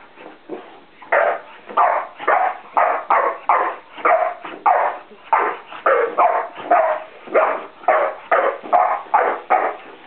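Boxer dog barking excitedly in a steady run of about sixteen barks, nearly two a second, starting about a second in.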